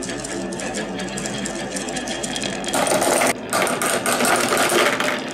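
Dozens of marbles rolling in a continuous stream along a wooden wavy marble-run track, a dense, rapid rattling clatter. About two and a half seconds in it grows louder and brighter as the marbles run down toward a clear plastic car at the end of the track, with a brief dip soon after.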